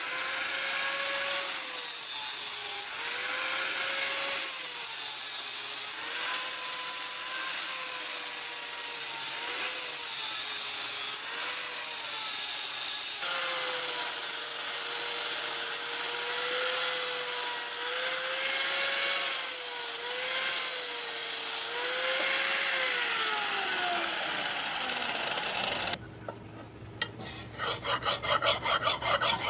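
Angle grinder with an abrasive disc grinding a steel blade: the motor whines steadily, its pitch dipping each time the disc bears on the steel, then winds down near the end. After that, a hand file rasps across the blade in quick repeated strokes.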